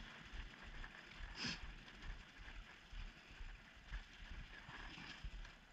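Faint sound of a bicycle rolling slowly over brick paving: a low rumble with scattered small clicks, and one brief soft rush about a second and a half in.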